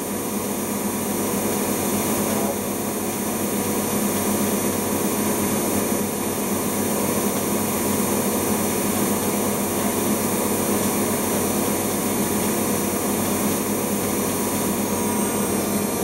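Siemens Serie IQ WIQ1430 front-loading washing machine in its high-speed final spin: a steady motor whine over the rushing of the spinning drum. It grows a little louder over the first couple of seconds, then holds level.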